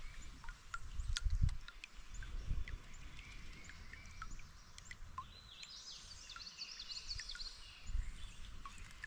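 Small birds chirping, with a longer twittering song phrase about six to seven seconds in. Faint scattered clicks and a few low bumps run underneath.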